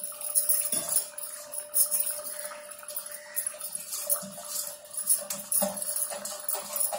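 Soaked rice scraped by hand out of a steel vessel and sliding wetly into a pot of boiling masala, in uneven scrapes and clicks, with glass bangles clinking.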